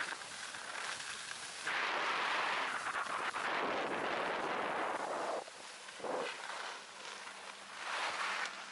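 Loud rough hiss of board and ski edges sliding and scraping over packed slope snow, mixed with wind on the microphone. It drops off sharply about five and a half seconds in as the run slows, with a few softer scrapes after.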